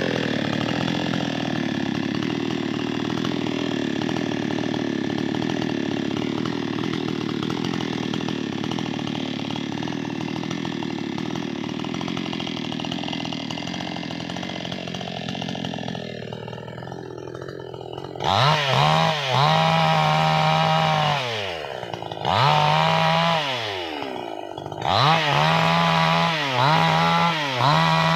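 Chainsaw running steadily under load as it cuts wood. It then eases off and is revved hard several times in short bursts, the engine pitch climbing and dropping with each.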